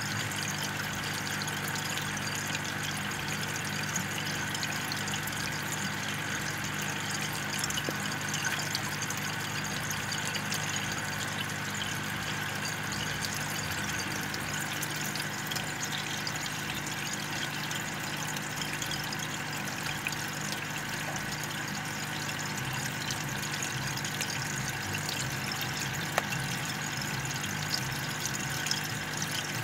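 Aquarium air stone bubbling steadily as air is pushed through it, over a low steady hum.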